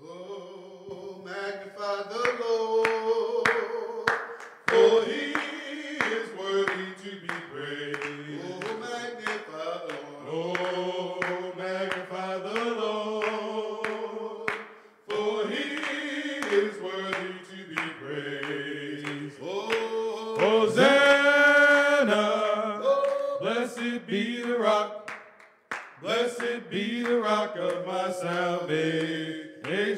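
Three men singing a gospel song in harmony without instruments, with hand claps keeping time.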